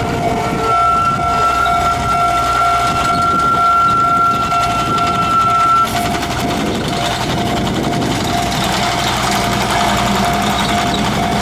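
Japanese railway level-crossing alarm ringing, a steady repeating tone over background rumble; a second, higher held tone stops about six seconds in.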